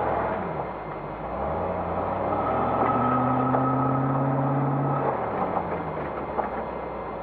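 Classic Range Rover's 3.9-litre V8 engine running under race load, its revs rising and falling, holding a slowly climbing pitch for a couple of seconds in the middle before dropping back.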